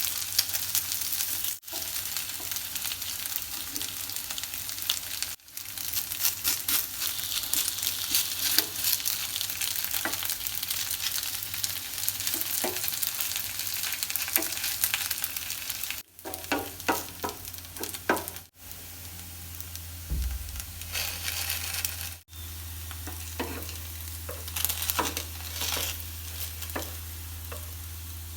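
Thin-cut potato pancake frying in oil in a pan, sizzling and crackling steadily, with a few light knocks in the second half and several abrupt breaks.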